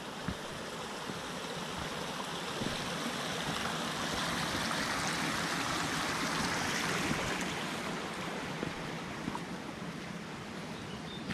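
Shallow stream running over rocks across a trail: a steady rush of water that grows louder toward the middle and fades again as it is passed.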